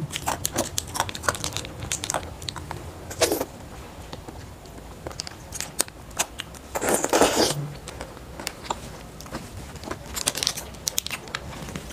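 Close-up eating sounds of biting and chewing frozen grape jelly gum, partly turned to ice: scattered crisp crackles and crunches, with a longer crunchy burst about seven seconds in.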